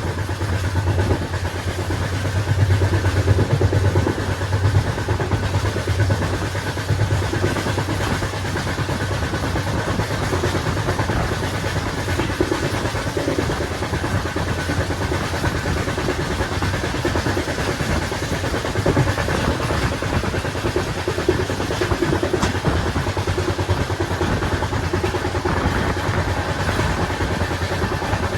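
Indian Railways train running, a steady rumble and rattle with a low hum that is strongest in the first several seconds.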